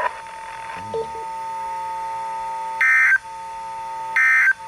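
NOAA Weather Radio SAME digital data bursts: two short, loud buzzy data tones about a second and a half apart, the End-of-Message code that closes the weekly test. A steady faint tone runs underneath.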